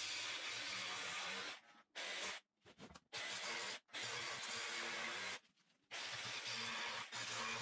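Makita 18V cordless jigsaw cutting marine plywood, in several short stretches that stop and start abruptly.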